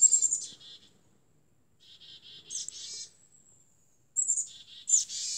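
Small songbirds singing in the trees: three bursts of high-pitched, quick chirping notes, with short quiet gaps between them.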